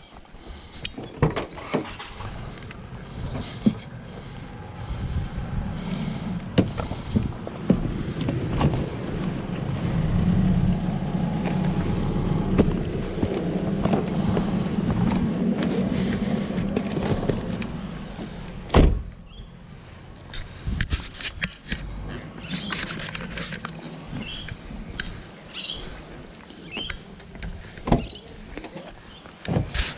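A motor vehicle droning, swelling over several seconds and then fading, followed by a single sharp knock.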